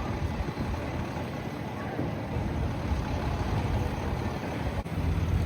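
Steady low rumble of vehicle traffic on a city street; near the end it cuts abruptly to a louder, steadier low hum.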